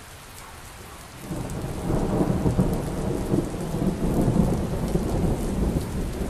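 Steady rain fading in, joined about a second in by a long low rumble of thunder that swells and carries on.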